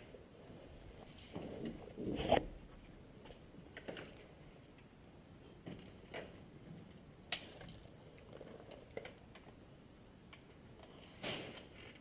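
Irregular rustling and scraping, with a few sharp clicks scattered through it; the loudest scuffle comes about two seconds in, and another near the end.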